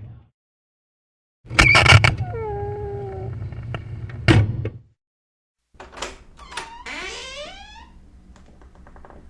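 Door hinges creaking in short separate bursts. First comes a loud clunk, then a creak that slides down in pitch, then a knock. After a moment of silence there are a couple of clicks and a longer creak falling in pitch.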